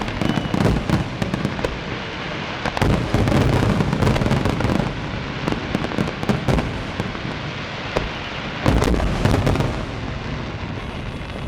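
Fireworks display: a dense, unbroken barrage of shell bursts and crackling over a low rumble, with heavier volleys about three seconds in and again about three-quarters of the way through.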